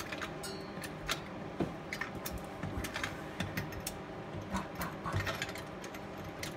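Hand tools and exhaust hardware clicking and knocking while an aftermarket exhaust is being fitted under a car: a steady run of irregular sharp clicks.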